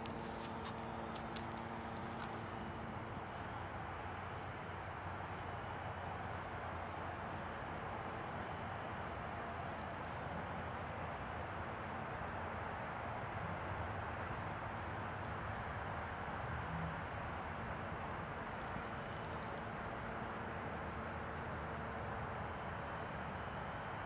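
Crickets chirping steadily in a thin high trill over a soft, even outdoor hiss, with one sharp click about a second and a half in.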